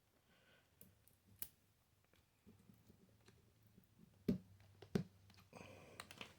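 A few light clicks and ticks, with two sharp knocks about four and five seconds in.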